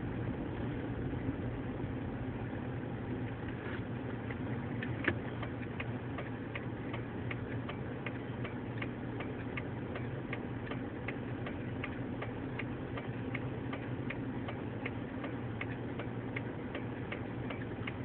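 Car's indicator relay clicking steadily, starting about five seconds in, over the low hum of the car's engine heard from inside the cabin. A single sharp knock comes just as the clicking begins.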